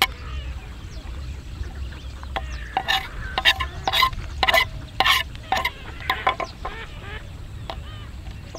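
Metal spatula stirring and scraping food in a hot pan, with a quick run of clinks and scrapes, about three a second, from about three seconds in until shortly after six seconds, over a steady low rumble.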